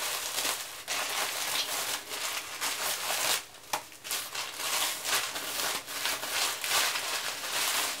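Black plastic shipping mailer bag crinkling and rustling continuously as hands rummage inside it, with a couple of brief pauses.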